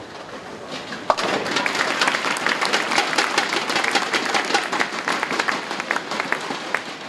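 A bowling ball knocks down a lone remaining pin about a second in, converting a spare, and the audience breaks into applause that continues until near the end.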